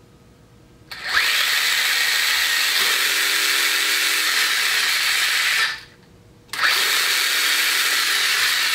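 Hosim 1/16 scale RC truck's 2845 brushless motor and drivetrain run up to high speed under throttle, a loud, steady, high-pitched whir. It spins up about a second in, cuts off about five seconds later, and spins up again half a second after that.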